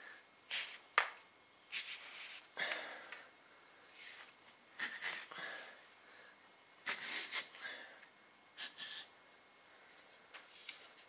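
A rubber band cut from a bicycle inner tube is stretched and twisted around two plastic-coated garden canes, making short, irregular rubbing and scuffing sounds about one every second or so, with a sharper click about a second in.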